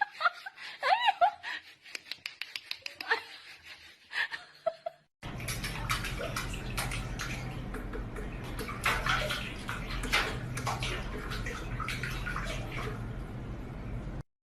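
Water splashing and running in a steady wash with many small clicks and knocks, after a few seconds of scattered clicks and a short pitched call.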